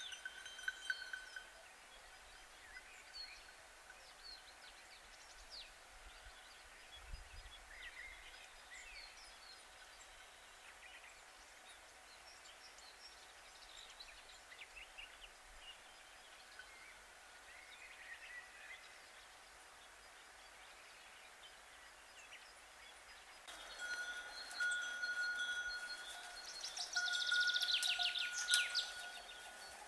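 Quiet outdoor ambience with scattered bird chirps. Near the end it turns suddenly louder as cowbells ring with a steady high tone, and birds call rapidly over them.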